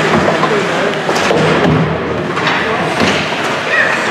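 Several thuds and knocks as ice hockey players and their sticks bang against the rink boards and glass in a scrum along the boards, over a steady rink din.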